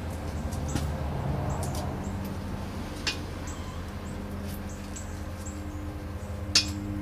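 Scattered light clicks and knocks of hands and tools working on a drained automatic transmission, over a steady low hum, with brief high-pitched chirps now and then.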